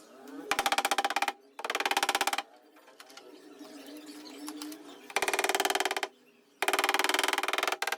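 Rapid tapping on a car door's sheet metal in four bursts of about a second each, the panel ringing under the strikes, as the low spots of a paintless dent repair are worked smooth.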